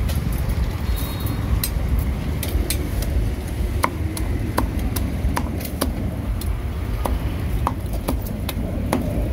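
Meat cleaver chopping roasted meat on a thick wooden chopping block: sharp, irregular chops, about two a second, over a steady low rumble of street traffic.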